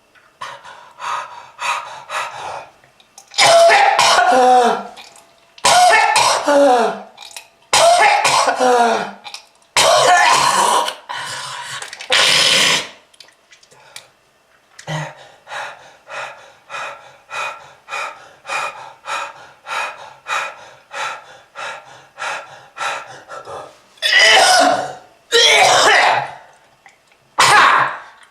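A person coughing in harsh, hacking fits: several loud, drawn-out coughs, then a long run of short quick gasps about two a second, then more loud coughs near the end. The coughing of a smoker with lung disease.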